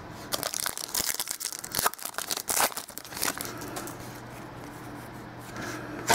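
A trading-card pack wrapper from 2013 Panini Elite football being torn open and crinkled: a quick run of crackling tears over the first three seconds or so, then quieter handling.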